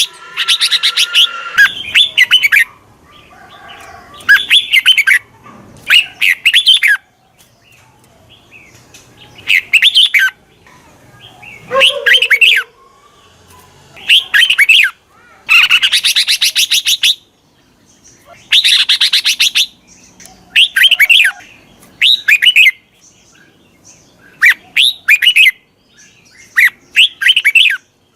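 Red-whiskered bulbul song: short, bright, warbled phrases repeated every one to two seconds with brief pauses between them.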